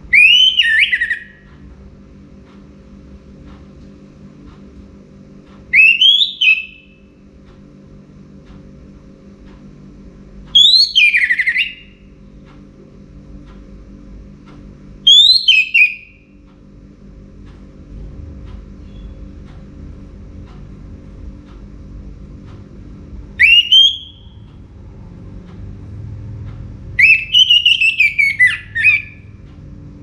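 Orange-headed thrush singing: six short, loud phrases of quick sweeping notes spaced several seconds apart, the last one near the end the longest. A faint steady low hum runs underneath.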